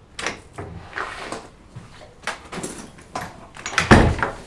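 Wooden front door being worked: a string of clicks and rattles from the knob and lock, then the door shut with a heavy thud about four seconds in.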